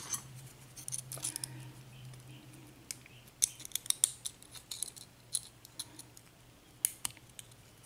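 Small sharp metallic clicks and light scrapes of hand tools working at the retaining clip on the back of an Abus 83/50 brass padlock's cylinder, coming in irregular clusters, over a faint steady low hum.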